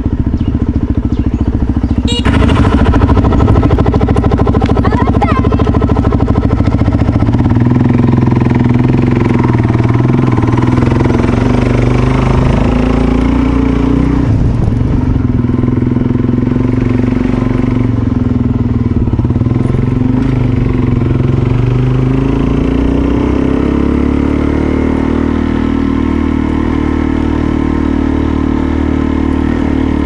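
Suzuki DRZ400SM's single-cylinder four-stroke engine running while ridden at low speed, its note shifting with the throttle and rising about three-quarters of the way through. A sharp clack about two seconds in.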